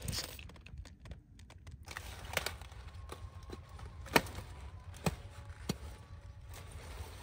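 A few crisp snapping cracks as a blade cuts through the thick stalk and leaves of a cauliflower plant, four separate snaps with the loudest about four seconds in, over a low steady rumble.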